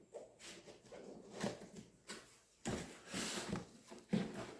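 Cardboard box and packaging being handled and rustled as a new air stapler is taken out of its box, in irregular scrapes and crinkles with a busier stretch a little past the middle.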